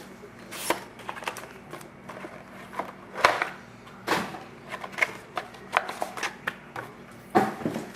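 Irregular clicks, taps and short rustles of a sealed trading-card box being handled and opened by hand, with cardboard and wrapping knocking and scraping. The loudest click comes about three seconds in, with another cluster near the end.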